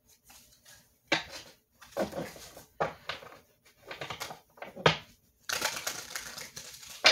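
Tarot cards being handled on a table: a few sharp slaps and taps as cards are laid down, then a second or so of dense shuffling and riffling near the end.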